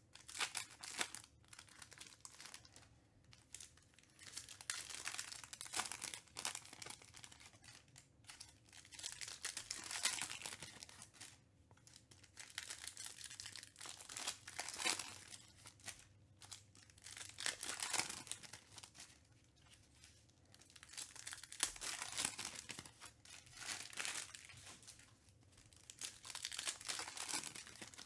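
Foil trading-card packs crinkling in the hands and being torn open, in repeated bursts of crackling every second or two.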